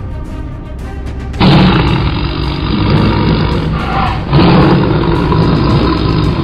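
Background music with two loud, harsh, noisy blasts from the soundtrack. The first starts suddenly about a second and a half in and lasts nearly three seconds; the second follows just after four seconds.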